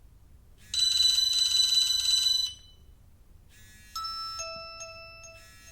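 Nokia 3310 (2017) playing a built-in ringtone preview through its small speaker: a bright chime-like chord starts about a second in and lasts under two seconds. After a short gap come quieter, steady electronic tones.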